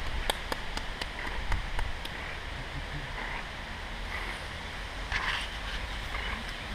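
Wind buffeting the camera microphone as a low rumble over a steady hiss, with a few light clicks in the first second and a half.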